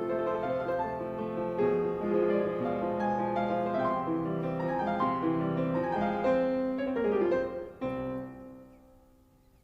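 Background piano music, a gentle melody of sustained notes that fades away near the end.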